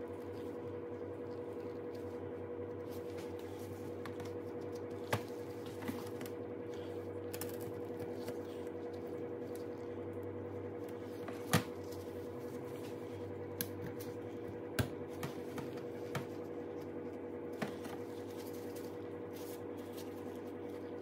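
Scattered small clicks and taps of new fuel injectors and their retainer clips being handled and snapped together, the sharpest about halfway through, over a steady background hum.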